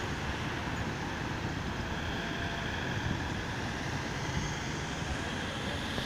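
Street traffic noise: a steady rumble of cars driving past, recorded on a smartphone's built-in microphone.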